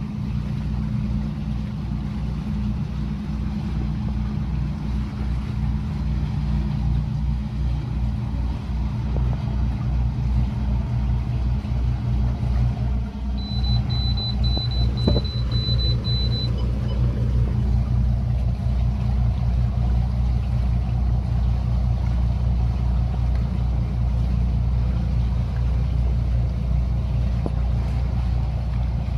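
A steady low machine rumble that grows slightly louder. About halfway through, the boat's AIS proximity alarm gives a quick run of short, high electronic beeps for about three seconds, the warning that another vessel is very close.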